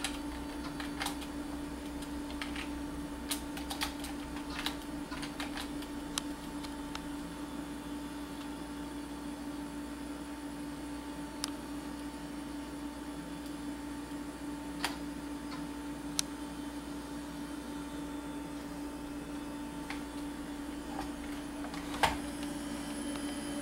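Scattered keystrokes on a computer keyboard, a cluster in the first few seconds and a few single ones later, typing a command into a Symbolics MacIvory Lisp Listener, over a steady hum from the running computer. A sharp knock near the end is the loudest sound.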